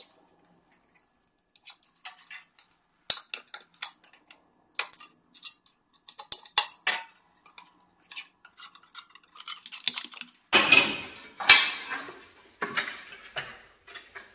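Sheet metal being worked by hand with pliers, its edge bent back: scattered metallic clicks and clinks, then two louder rasping scrapes of the sheet near the end.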